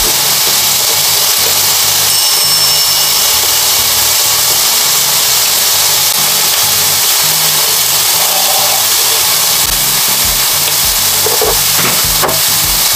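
Pork steaks sizzling on an indoor grill plate, a steady loud hiss, with background music underneath.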